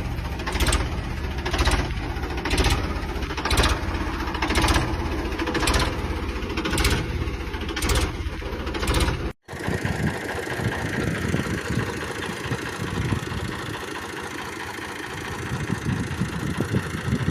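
Tractor diesel engine running, with a regular sharp stroke about once a second over the engine sound. About halfway through it cuts abruptly to a tractor engine running lower and more unevenly.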